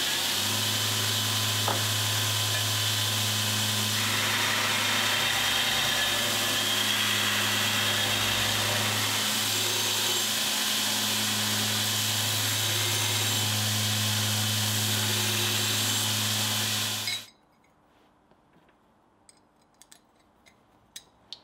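Belt grinder running, its abrasive belt grinding a forged steel nutcracker arm: a loud, steady grinding hiss over the motor's low hum, cutting off suddenly about seventeen seconds in. Then a few faint clicks of the small steel parts being handled.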